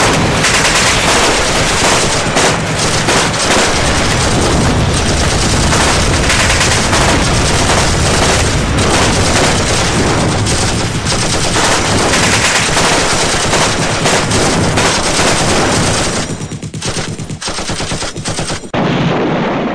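Loud, dense battle gunfire: rapid automatic fire with many shots overlapping. It thins into separate bursts about three-quarters of the way through, then comes back loud briefly at the end.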